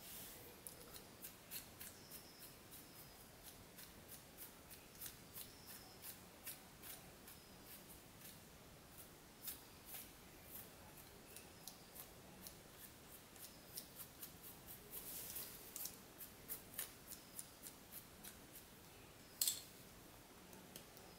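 Paintbrush bristles brushing dust from an open laptop chassis: irregular short, crisp strokes against the plastic and metal, about one or two a second, with a sharper click near the end.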